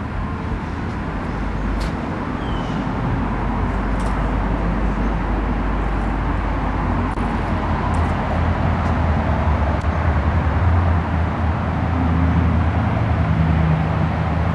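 Steady outdoor background noise: a low rumble with a hiss above it and a few faint high clicks, growing a little louder in the second half.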